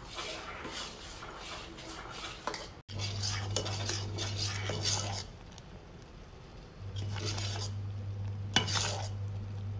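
A spoon scraping round the bottom and sides of a steel pot, stroke after stroke, while thickening custard is stirred continuously so it doesn't catch. A low steady hum comes and goes under it, and there is one sharp click near the end.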